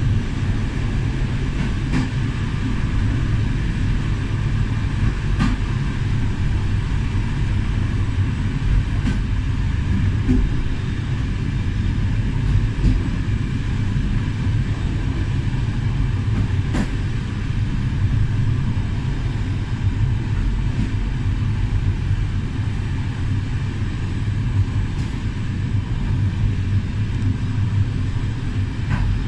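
Railway passenger coach rolling along the track, heard from the rear of the last car: a steady low rumble with a few sharp, irregular clicks as the wheels cross rail joints and points.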